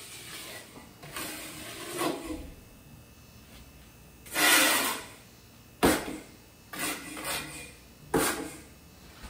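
A rounded-edge trowel scraping back and forth over Kerdi waterproofing membrane bedded in thin-set mortar, pressing out excess cement for a good bond. It comes in a series of separate strokes, some about a second long, with short pauses between.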